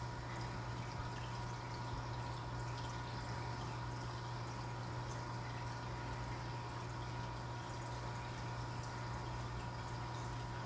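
Aquarium air bubbling from sponge filters and an air stone, a steady watery fizz and gurgle, with a constant low hum underneath.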